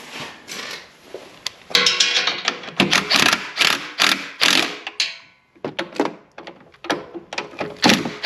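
A cordless drill spinning a socket on an extension to tighten exhaust clamp nuts. It runs in repeated short bursts, then gives way to a quick run of sharp clicks over the last few seconds.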